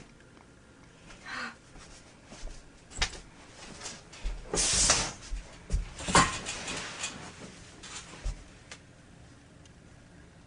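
Scattered knocks and clicks from things being handled and moved, with a brief rustling swish about halfway through and a few sharper knocks just after it.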